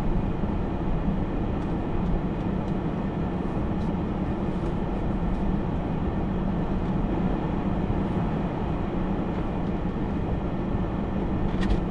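A vehicle engine running steadily at a constant speed: an even low hum with no change in pitch or loudness.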